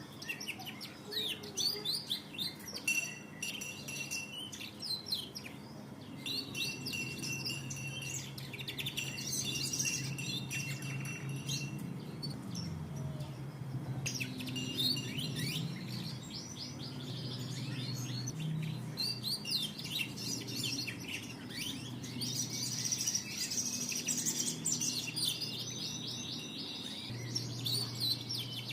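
Domestic canary singing a long, continuous song of rapid trills and rolls, with held high notes, over a steady low hum.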